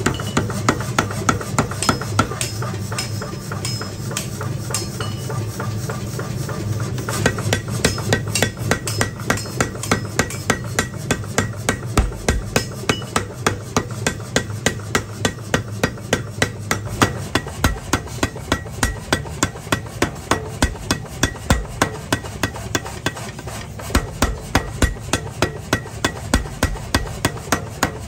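Mechanical power hammer pounding a red-hot steel cleaver blank in a rapid, even run of metal-on-metal blows, about three a second. A low machine hum runs under the blows for the first several seconds.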